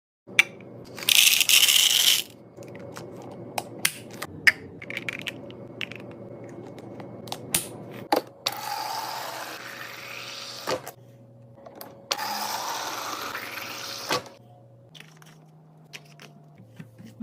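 Restocking and handling sounds: sharp clicks and taps of containers, lids and packaging being set down and handled. There is a loud burst of rushing noise about a second in and two longer stretches of rushing noise later on, over a faint steady hum.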